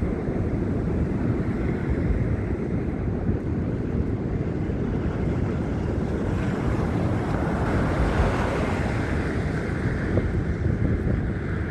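Wind buffeting a phone's microphone: a steady low rumble, with a hissier swell around the middle.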